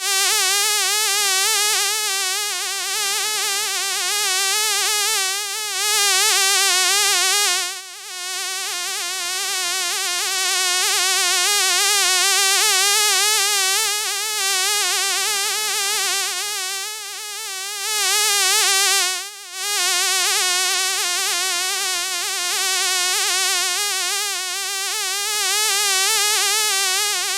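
A fly buzzing continuously, the pitch of its wingbeat hum wavering quickly up and down. The buzz twice fades briefly, about a third and two thirds of the way through.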